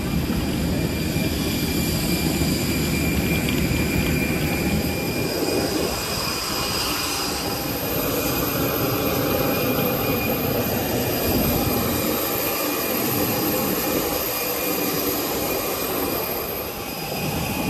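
Steady cabin noise of an airliner: a continuous engine and air-system rush with faint high whines running through it.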